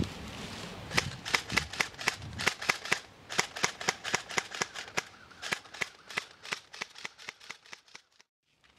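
Airsoft guns firing a rapid, uneven string of sharp single shots, about four or five a second, fading over the last few seconds and stopping about eight seconds in.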